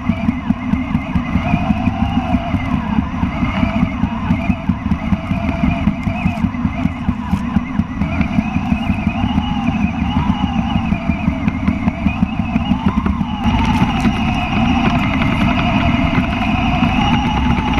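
Kyosho Blizzard FR RC snow cat running on its tracks: the electric motor whines, its pitch rising and falling with the throttle, over a fast, steady rattle from the tracks and drivetrain. About two-thirds of the way through the sound turns steadier and a little louder.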